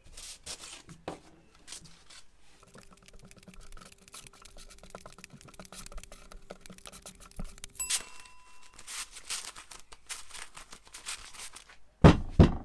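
Used paper sanding discs being gathered and stacked by a gloved hand: a string of short papery rustles, scrapes and light slaps. Near the end come two loud, heavy thumps as the cloth-wrapped hammer head is picked up.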